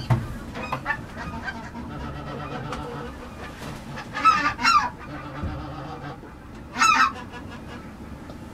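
Geese honking: a quick run of several calls about four seconds in and a single short call near seven seconds.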